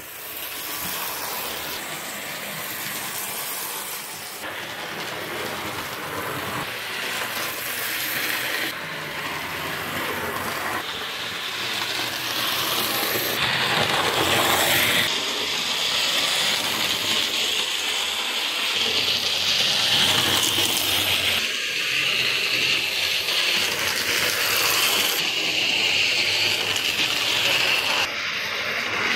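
Hornby OO gauge Class 37 model diesel locomotive running fast round the track: a steady electric-motor whir with clicking of wheels on the rails, louder as the loco passes close by.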